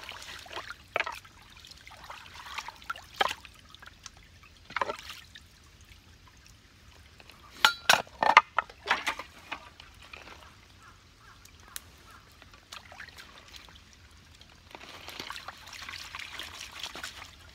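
Water trickling, with scattered knocks and clinks. A quick cluster of sharp knocks about eight seconds in is the loudest part, and the trickling grows louder near the end.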